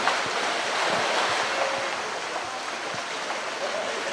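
Pool water splashing and sloshing as a polar bear thrashes and swims about with a plastic barrel.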